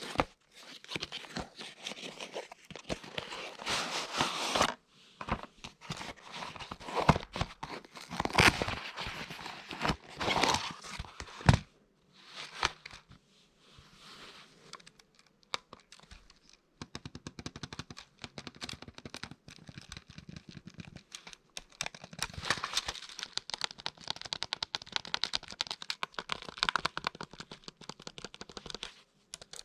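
Binatone Mastermind MK2 calculator keys clicking in quick succession through the second half. Before that, in the first half, there is a stretch of irregular rustling and crackling.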